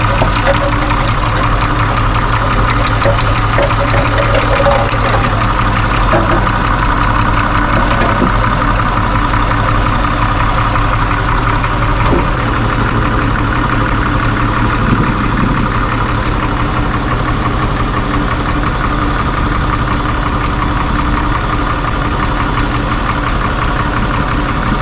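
1963 Chevy 4x4 pickup's straight-six engine idling steadily and evenly, its misfire cured after bent pushrods were replaced and stuck valves freed.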